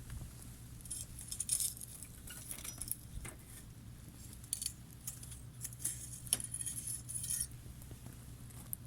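Wood campfire crackling: clusters of sharp, high-pitched snaps and pops about a second in and again from the middle to near the end, over a steady low hum.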